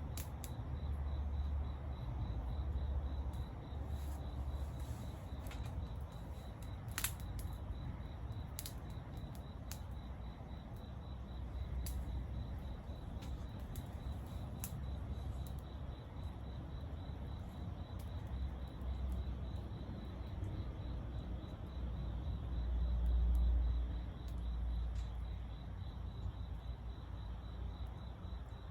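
Crickets chirping steadily, with scattered sharp pops from a wood campfire and a low, uneven rumble of wind on the microphone that swells about three-quarters of the way through.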